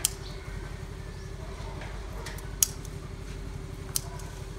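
Scissors snipping through water spinach (kangkong) stems: three short, sharp snips, one at the start, one past the middle and one near the end, over a steady low hum.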